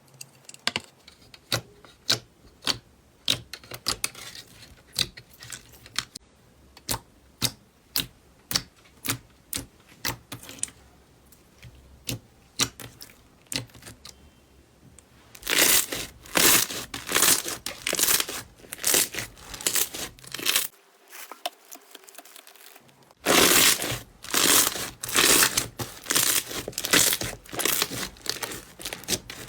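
Slime being handled: sharp pops and clicks about two a second, then from about halfway dense, louder crackling squishes in quick bursts, with a brief pause before the last stretch.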